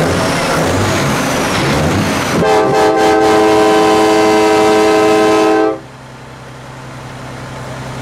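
A semi truck's diesel engine running hard, then a truck-mounted train horn blasts one steady multi-tone chord for about three seconds and cuts off sharply, leaving the engine idling.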